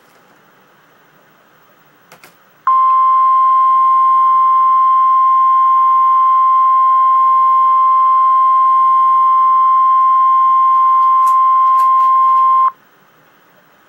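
Emergency Alert System attention signal in the form of the National Weather Service's single steady 1050 Hz warning tone. It starts about three seconds in, holds at one pitch for about ten seconds, then cuts off abruptly; the tone announces a weather warning. Before it there is only faint hiss and a couple of small clicks.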